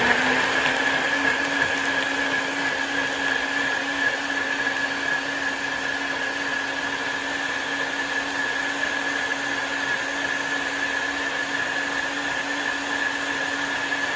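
NutriBullet blender running steadily, puréeing a tomato, chile and cream-cheese sauce: a steady motor hum with a high whine over it.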